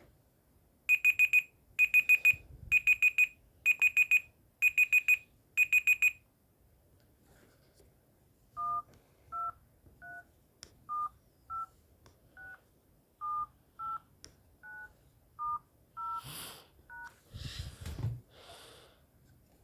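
Phone speaker playing six quick groups of four short, high electronic beeps. After a short pause, the dial pad's DTMF keypad tones sound one key at a time through all twelve keys in order, 1 to 9 then *, 0, #. A few brief noisy rustles follow near the end.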